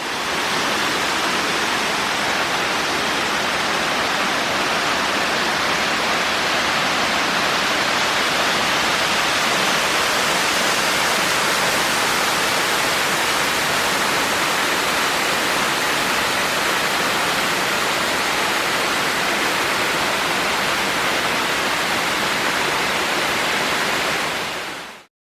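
Waterfall rushing: a steady, loud, even roar of falling water that cuts in at the start and stops abruptly near the end.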